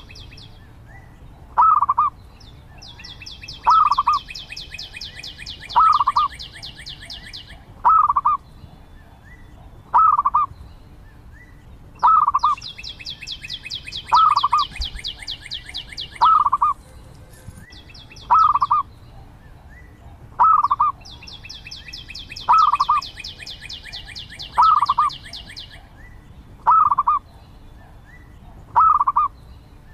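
Zebra dove calling: a short call repeated about every two seconds. A faster, higher-pitched ticking trill lasting a few seconds comes in three times.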